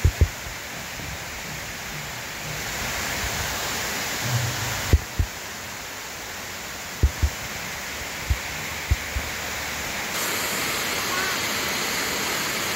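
Steady rushing of a waterfall, with several dull, low thumps scattered through the first part.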